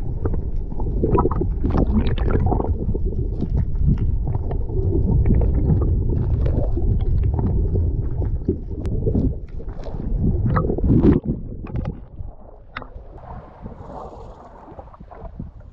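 Muffled underwater rumbling and gurgling of sea water, heard from below the surface, with scattered small clicks. About eleven seconds in it drops suddenly to a quieter hiss of wind and open water.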